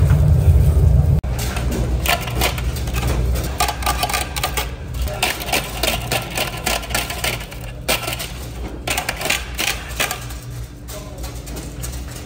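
Fast, irregular clattering and tapping of metal cooking utensils over a low steady hum. A loud low rumble cuts off abruptly about a second in.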